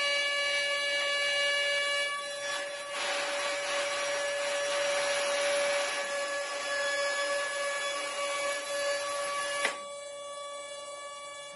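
800 W CNC router spindle whining steadily while its bit mills into a wooden board. The rasping cutting noise swells about three seconds in and cuts off sharply near the end, leaving just the steady spindle whine.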